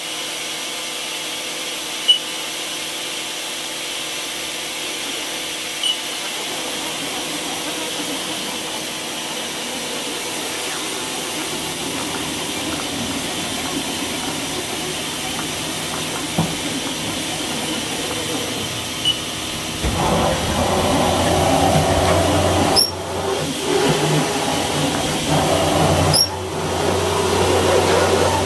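Haas EC-400 horizontal machining center running: a steady hiss with a faint hum. About two-thirds of the way in it grows louder and rougher, with two brief breaks.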